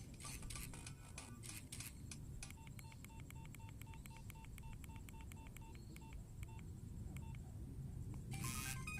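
Mobile phone keypad: a run of clicks, then a rapid string of short identical key beeps at about four a second, ending with three more spaced beeps. A brief loud burst of noise comes near the end.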